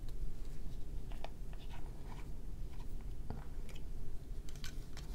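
Scattered small clicks and scrapes of a glass Diamine ink bottle's screw cap being twisted off and handled, with a quick cluster of clicks near the end.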